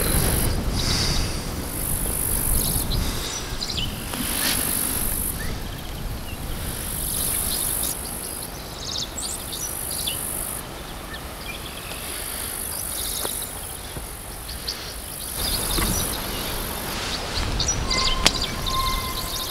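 Rural summer ambience: insects singing in a high buzz that swells and stops every couple of seconds, with scattered bird chirps and gusts of wind rumbling on the microphone.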